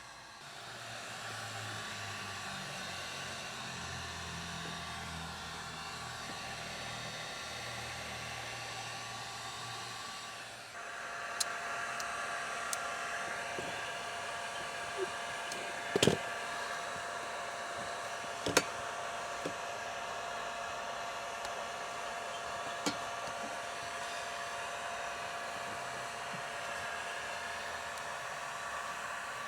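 Steady whirring, blowing motor noise that shifts to a higher, steadier tone about eleven seconds in, with several sharp clicks or knocks over the next twelve seconds, the loudest about halfway through.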